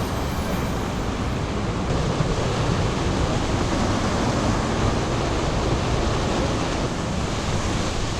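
Steady rushing of river whitewater over a rapid, an even loud noise with no change.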